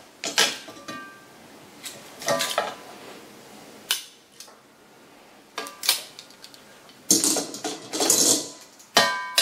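Metal tongs clanking and scraping against a cast-iron Dutch oven as a wire rack is lifted out of it: a string of sharp separate clanks, some ringing briefly, with a denser rattle near the end.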